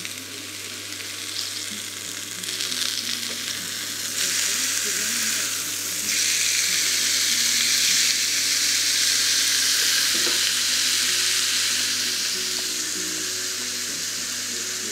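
Meat cutlets sizzling in a hot ridged cast-iron grill pan as they are turned with tongs. The sizzle grows louder in steps over the first six seconds, stays strong for several seconds, then eases slightly.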